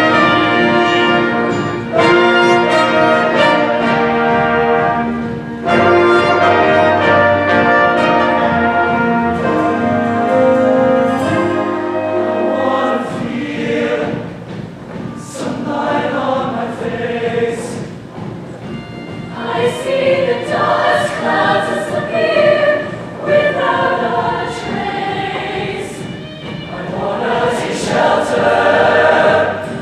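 Mixed show choir singing in harmony with instrumental accompaniment. Held chords give way about halfway through to short, rhythmic choral phrases.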